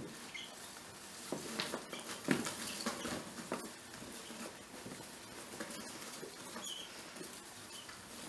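Young pet rats scurrying over a fabric blanket and around wooden hideouts: soft scrabbling, rustling and light knocks, with a few faint short high peeps.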